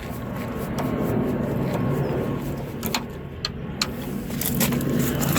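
Steady low mechanical hum with a few sharp clicks about three seconds in and again near the end, from screws being tightened on a car door's lock and handle assembly.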